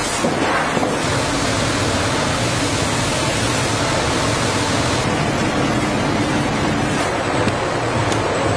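Steady rushing noise of water spraying over coconuts in a factory washing machine, with a low machinery hum underneath.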